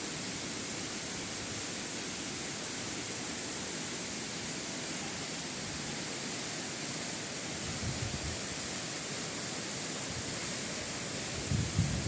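Steady rushing noise of the Velikan waterfall, even throughout, with a few short low thumps near the end.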